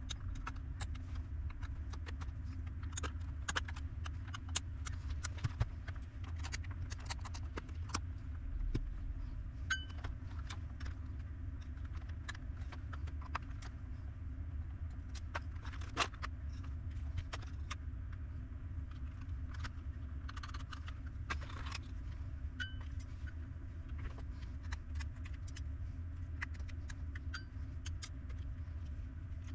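Irregular light clicks and taps of tools and small parts being handled at a workbench, over a steady low hum.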